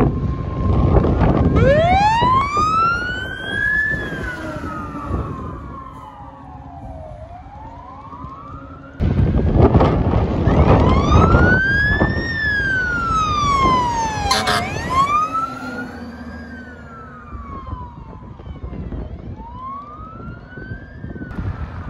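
Fire truck sirens wailing, the pitch sweeping up and down in slow cycles of a few seconds each, over low vehicle and wind rumble. A short blast cuts in about two-thirds of the way through.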